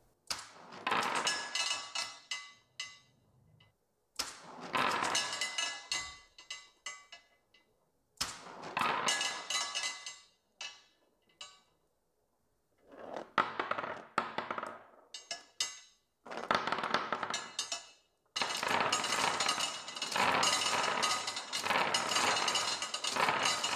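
Steel marbles clattering and rattling through the stacked channels of a 3D-printed marble-clock multiplexer and spilling onto a wooden workbench, as its solenoid-driven release gates let them out. The clatter comes in six bursts with short pauses between, the longest near the end.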